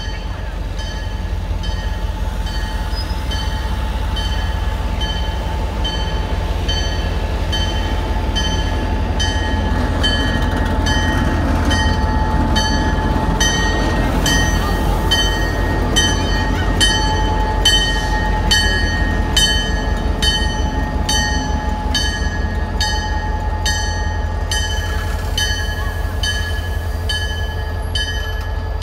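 Diesel locomotive and passenger cars passing slowly over a grade crossing, the engine's low running sound growing louder midway as the locomotive goes by. Over it a crossing bell rings steadily, about two strikes a second.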